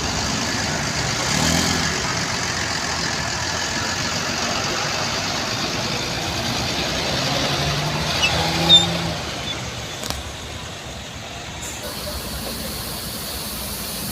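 Buses' engines idling at a bus terminal, a steady engine noise with a faint low hum coming and going, and one short sharp sound about nine seconds in.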